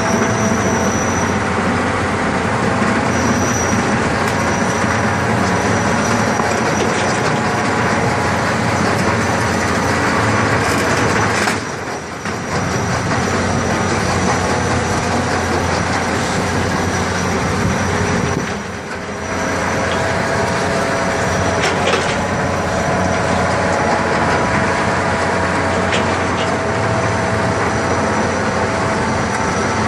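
A very large dirt-digging machine working, giving a loud, steady mechanical din with a faint high whine running through it. The noise dips briefly twice near the middle.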